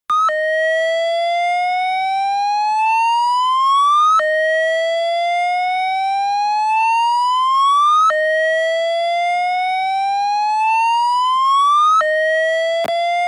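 Fire alarm sounding a slow whoop tone: each whoop rises steadily in pitch for about four seconds, then drops back abruptly and starts again. It repeats through the whole stretch, with one sharp click near the end.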